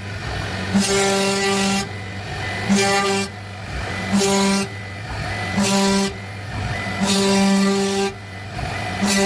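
CNC wood router running: a steady horn-like machine tone starts and stops about six times, each run lasting half a second to a second, over a constant low hum and hiss.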